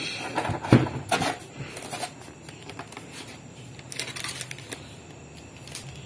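Handling noise as a plastic sewing machine is lifted out of its foam packing and set on a table. There are a few sharp knocks and rubbing sounds in the first second or so, then only faint scattered clicks.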